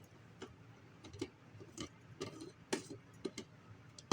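Irregular light clicks and taps, about a dozen, from small objects being handled: enclosures and tools. The sharpest click comes near the end.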